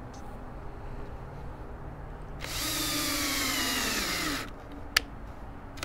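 Bosch power drill running for about two seconds as its bit bores into an HDPE plastic cutting board, starting about two and a half seconds in, with its pitch sliding down as the bit bites. A single sharp click follows about half a second after it stops.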